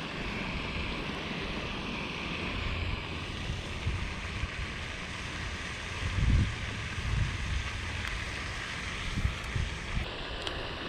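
Wind on the microphone: a steady hiss with low, gusty rumbles, the strongest about six seconds in.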